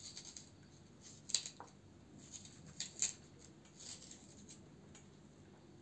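Kitchen knife working through a hollowed-out black radish: a few faint, short scrapes and clicks, sharpest about a second and a half in and again at three seconds.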